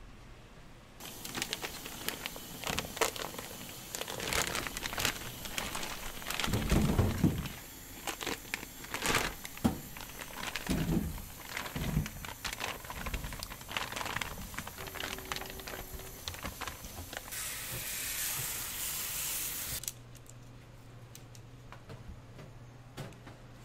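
Plastic food packaging crinkling and rustling as it is handled, with scattered clicks and a few soft knocks. Near the end comes a steady hiss of water spraying for a couple of seconds.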